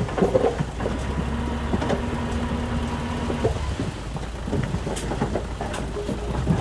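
Diesel engine of earthmoving machinery running with a steady low rumble, with scattered knocks and clanks. A steady tone sounds from about a second in until about halfway through.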